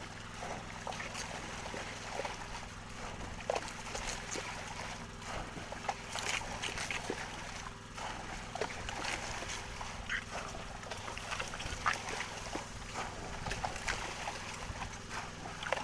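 Water splashing and slapping as a hand dip net scoops through a thick swarm of squid thrashing at the surface, with many short splashes throughout over a steady low hum.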